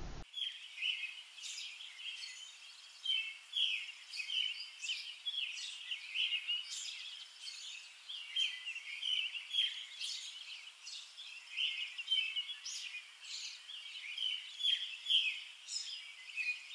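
Birds chirping and calling continually, a busy stream of many short, high chirps with no low sound beneath them.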